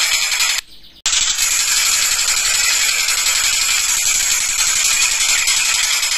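Stork-billed kingfisher (tengkek buto) calling, a loud, rapid, harsh rattling cackle. The sound cuts out abruptly for about half a second shortly after the start, then carries on.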